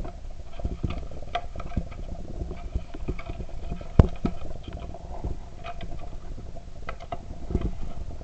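A small cardboard box being handled and its flaps folded shut, with scattered taps and rustles and one sharp knock about four seconds in.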